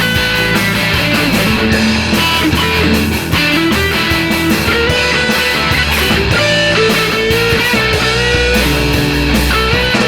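Rock band playing an instrumental passage between sung verses: electric guitars with bass and drums.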